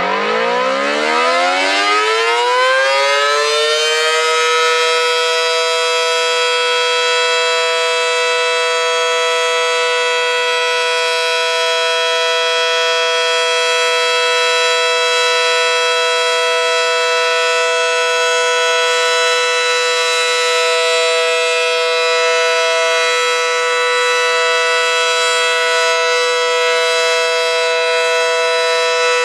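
Federal Sign & Signal Model 5T warning siren with a large 9/12-port chopper winding up from a low pitch over the first four seconds, then holding a loud, steady two-note chord. This is the steady alert signal of a monthly siren test.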